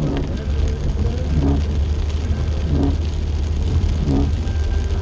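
Car driving in heavy rain, heard from inside the cabin: steady low road and engine rumble with rain on the glass, and the windshield wipers sweeping about once every second and a half.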